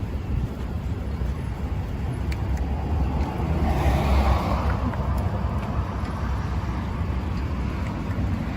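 Road traffic: a steady low rumble, with a vehicle passing and swelling about four seconds in.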